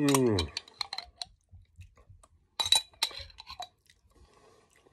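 A metal spoon clinking and scraping against a glass jar of hot chilli pickle as it is scooped out, in a few clusters of sharp clinks. It opens with a short falling vocal groan from the eater.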